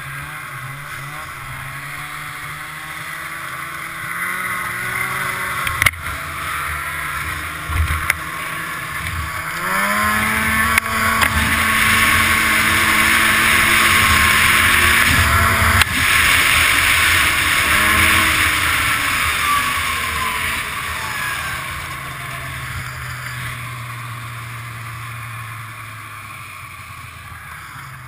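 Polaris Indy 500 snowmobile's two-stroke engine under way. It revs up sharply about ten seconds in, holds high revs for several seconds, then eases off and slows toward the end. A few sharp knocks come through along the way.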